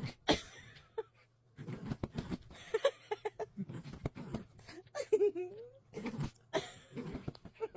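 A Pomeranian growling in play while it shakes and tugs a plush toy on bedding, with irregular bursts of the covers rustling and a few short whiny notes.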